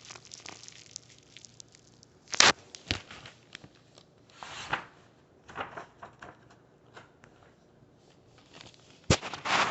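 Paper rustling and crinkling in short scattered bursts, with a few sharp clicks, as a storybook's pages are handled and turned.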